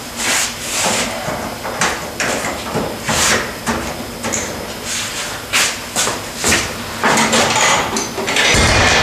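Irregular knocks and clatters of things being handled at a kitchen counter. Near the end comes a louder, deeper thud as a glass-paned wooden door is pulled shut.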